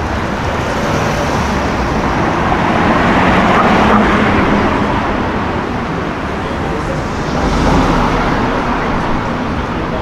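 BMW M3 sedan (G80, twin-turbo inline-six) driving past in city traffic, its engine and exhaust growing louder to a peak about four seconds in as it goes by, with a second, smaller swell of passing traffic near the end.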